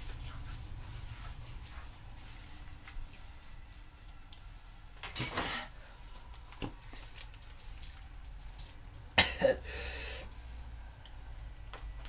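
A man coughing: one short cough about five seconds in, then a quick bout of several coughs near the end, with faint handling clicks between.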